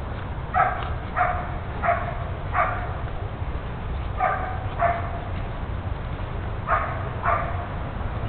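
A dog barking: eight short, fairly high-pitched barks in three bursts. Four come about two-thirds of a second apart, then two more a little after the middle, then two near the end.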